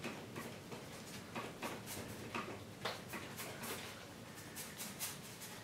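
A loaded paintbrush striking and scrubbing paint onto a stretched canvas: irregular soft taps and short brushy swishes, a few a second.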